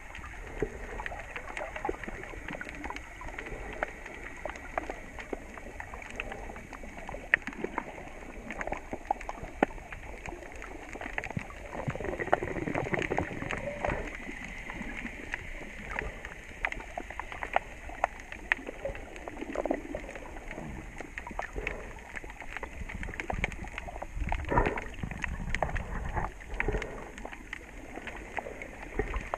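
Underwater ambience: a steady muffled wash of moving water, peppered with many small clicks and crackles. Twice, louder low sloshing swells up for a couple of seconds.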